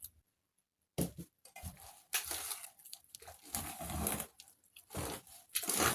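Whisk working through thick, wet puff puff batter in a bowl: irregular squelching, slapping strokes, starting about a second in.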